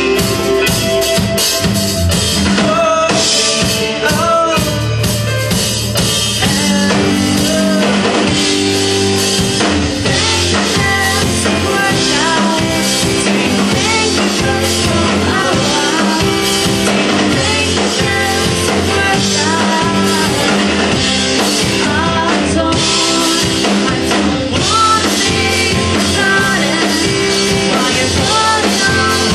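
Live rock band playing: electric guitar and drum kit, with a man singing over them.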